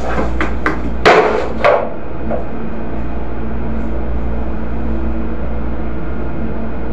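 A few sharp knocks and clatters of stock being handled on the storeroom shelves in the first two seconds, the loudest about a second in. Under them runs a constant low drone of a ship's machinery with a steady hum.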